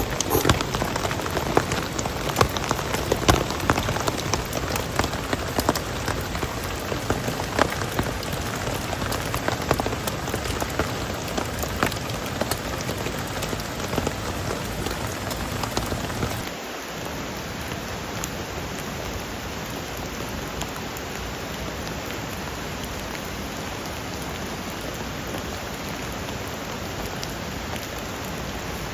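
Rain falling steadily, with many sharp drop ticks in the first half; a little past halfway it changes abruptly to a smoother, slightly quieter hiss of rain.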